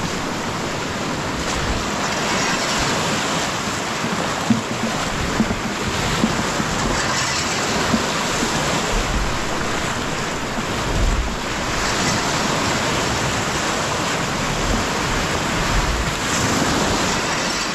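Steady rush of flowing floodwater, with wind buffeting the microphone in low gusts.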